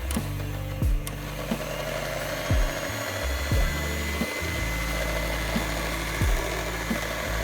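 Electric hand mixer running steadily, beating heavy cream, under background music with a deep bass line and irregular kick-drum thuds.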